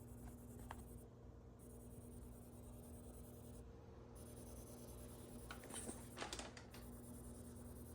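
Fire alarm panel's battery charging circuit giving a faint steady hum while it charges newly fitted sealed lead-acid batteries, with brief handling rustles and clicks about six seconds in.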